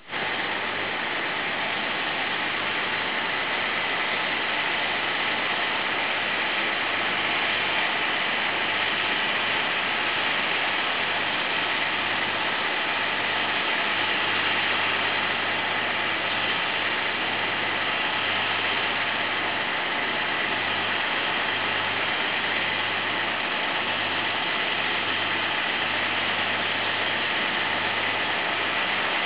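Massey Ferguson 6490 Dynashift tractor's six-cylinder diesel engine running steadily under load while pulling a reversible mouldboard plough.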